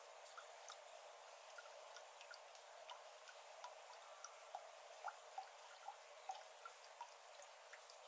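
Water drops falling into the shallow flooded water of an iris garden, faint plinks at irregular intervals, a few a second, over a faint steady hiss. No frogs are calling.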